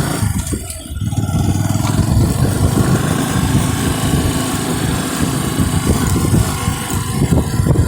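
Bajaj Boxer motorcycle's single-cylinder engine running, with a brief dip in loudness about a second in.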